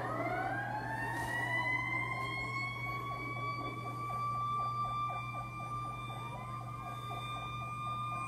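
A fire engine's Federal Q mechanical siren winding up, its wail rising in pitch over about two seconds and then holding steady and high. A faster pulsing lower sound runs underneath for a few seconds mid-way. The sound is played back through laptop speakers.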